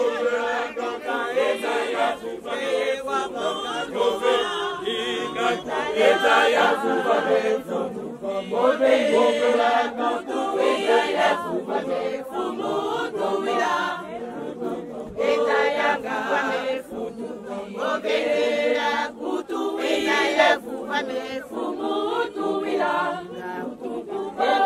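Group of mostly women's voices singing a church song together, unaccompanied, as a steady choral chant.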